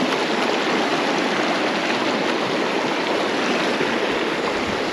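Small high-gradient stream's water rushing steadily, an even, unbroken rush.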